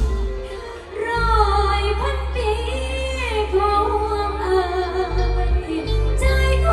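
A woman singing a Thai luk thung song over a backing track with a heavy, steady bass line.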